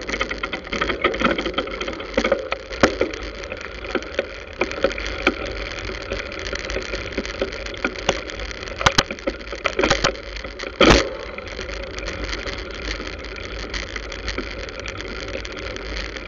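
A bicycle-mounted camera rattling and knocking as the bike rides over the road, over a steady rush of road and wind noise with motorcycle and car traffic going by. The clicks come irregularly throughout, bunch together just before ten seconds in, and a single loud knock comes about eleven seconds in.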